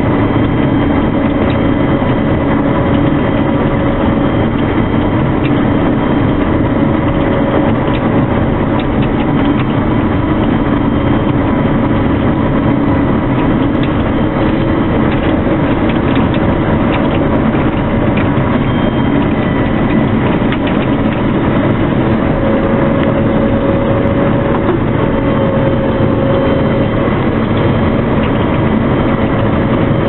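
CLAAS Lexion 520 combine harvester running while cutting winter barley, heard from inside the cab: a steady, unbroken drone of the engine and threshing machinery.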